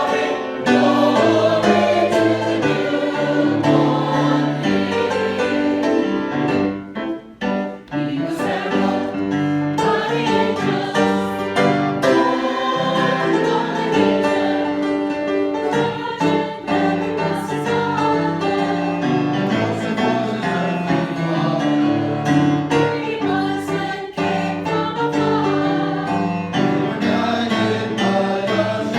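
Choir singing with instrumental accompaniment, with a brief drop about seven seconds in.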